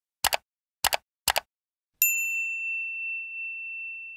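Three short, sharp clicks in quick succession, then a single notification-bell ding that rings on and slowly fades. These are the sound effects of a subscribe-reminder animation.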